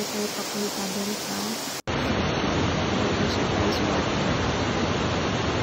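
Steady rush of a waterfall pouring over rocks into a pool, with faint voices over it at first. The sound drops out for an instant a little under two seconds in, and the water noise comes back louder and fuller.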